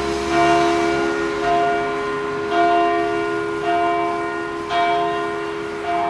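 Church bells of St. Trinitatis ringing, with a new strike roughly once a second. Each strike rings on over a steady hum.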